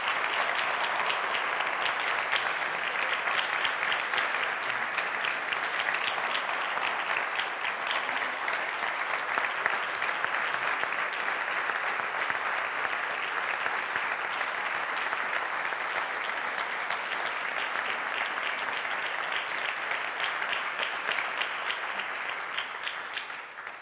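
Audience applauding: dense, steady clapping that keeps up for over twenty seconds and then dies away near the end.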